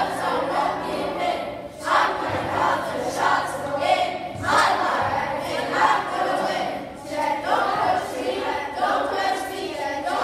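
A class of children singing together in unison, in phrases broken by short pauses every two to three seconds.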